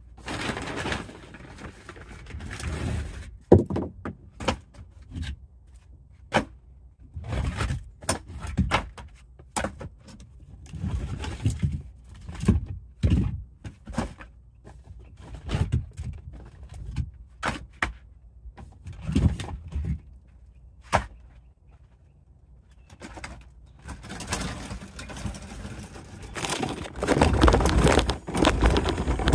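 Split firewood logs set down one after another into a fabric-sided collapsible wagon, knocking against each other in a string of separate clunks. Near the end the loaded wagon is pulled off, its wheels rolling and rattling over dirt.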